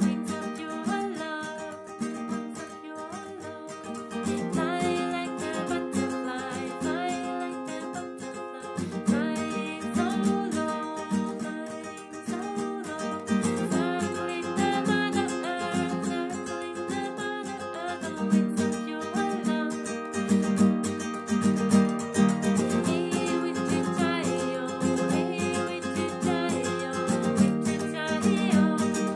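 A woman singing a gentle chant melody while strumming a nylon-string classical guitar with a capo, the chords changing about every four to five seconds.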